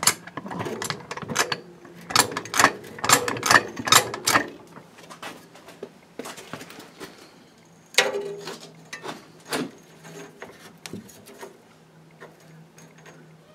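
Hydraulic bottle jack being pumped up under a car's fuel tank: a run of quick metallic clicks and knocks, about three a second, for the first four seconds or so, then a few scattered clicks and two louder knocks as the jack and tank are handled.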